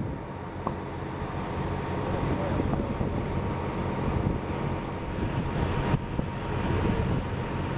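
Steady low rumble of an idling vehicle engine, with wind on the microphone.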